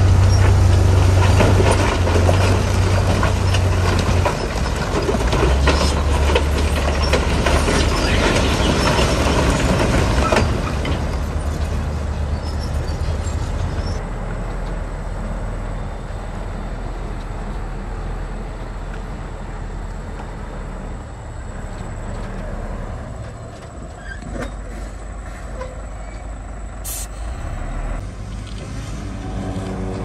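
Heavy diesel engine of earth-moving machinery running, loud for about the first ten seconds and then dropping to a quieter steady level.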